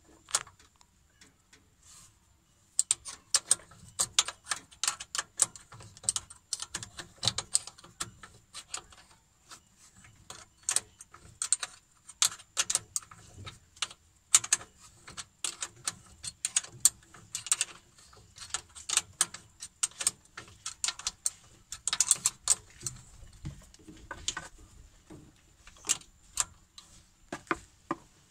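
Irregular metallic clicks and clinks of a spanner working the carburettor's 10 mm mounting nuts as they are tightened. The clicking comes in quick clusters and starts about three seconds in.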